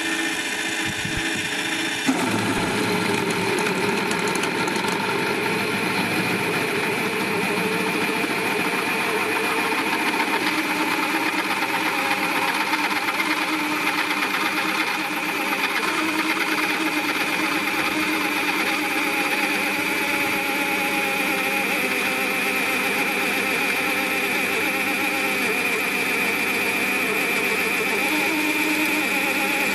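Bench pillar drill (Lidl Parkside PTBMOD 710 B2) running at 500 rpm, a 12 mm twist bit cutting steadily through steel flat bar that has a pilot hole. The cutting sound fills out about two seconds in. The motor is under heavy load, with a noticeable drop in power at this bit size and speed.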